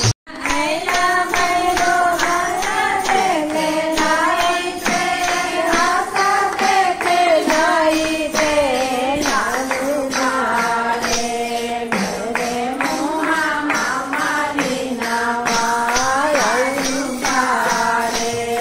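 Hindu devotional bhajan to Lord Shiva: a voice sings a flowing melody over a steady percussion beat with a jingling, tambourine-like sound. The sound cuts out for an instant right at the start.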